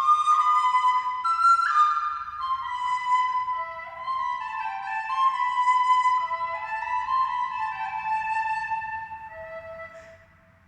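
Instrumental music: a high, flute-like melody in held notes stepping up and down, at times in two parts, fading out near the end.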